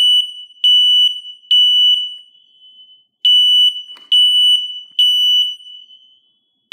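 Kidde Fyrnetics model 1275 ionization smoke alarm sounding on its test button, running on its backup battery with the mains power cut: a loud, high-pitched beep repeated in groups of three, each beep about half a second long, with a pause of about a second between groups. This is the three-beep evacuation pattern, and it shows the battery and horn are working.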